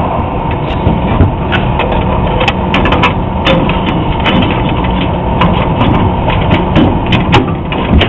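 Steady loud rumbling noise with irregular sharp clicks and knocks as a brass reversing valve is handled and fitted onto copper refrigerant lines.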